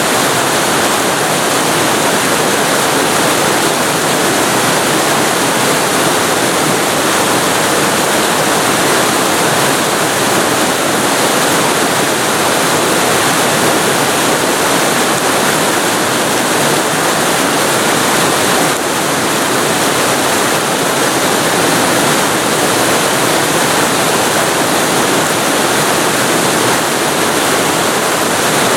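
Waterfall recorded very close to the falling water: a loud, steady rushing roar of water.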